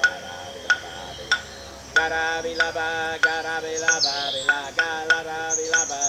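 Recorded Aboriginal-style soundscape played through hidden outdoor Bose Freespace 51 speakers. A sharp click keeps a steady beat about every two-thirds of a second, a wavering chant-like singing voice joins about two seconds in, and high bird chirps come in near the end.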